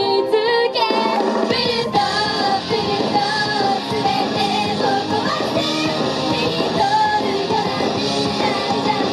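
Up-tempo rock-style Japanese idol-pop song with a young woman's lead vocal sung into a handheld microphone. The bass and drums come in about a second and a half in, after a lighter opening.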